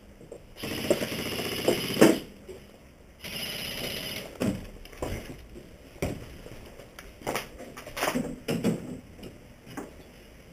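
Two full-auto bursts from an airsoft electric gun, the first about a second and a half long and the second about a second, with a rapid ringing rattle. They are followed by scattered crunching steps on rubble and debris.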